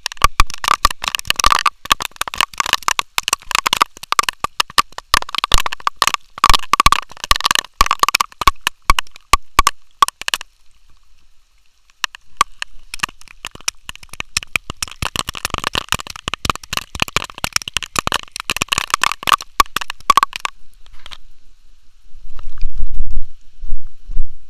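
Raindrops striking the camera's housing close to the microphone, a dense run of sharp ticks that breaks off for about a second and a half midway and then resumes. Near the end the ticking stops and low rumbling thumps follow as the camera is handled.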